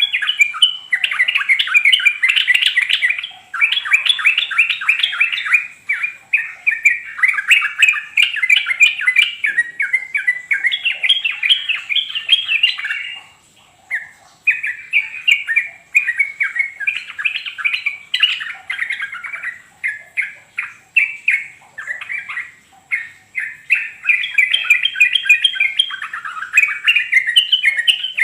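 Yellow-vented bulbul (trucukan) singing: rapid chattering phrases in bursts of a second or two, separated by short pauses, with one clear gap about halfway through.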